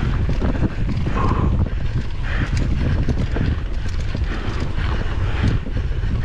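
Mountain bike ridden fast over bumpy grass and sand: the frame, chain and components rattle and knock over the rough ground, with wind buffeting the action camera's microphone as a heavy low rumble.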